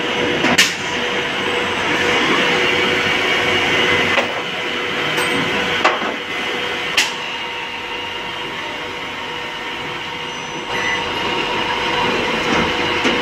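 Special-purpose two-spindle drilling machine running a peck-drilling cycle: a steady mechanical whirr with a constant hum, broken by a few sharp clicks. It grows a little louder again near the end.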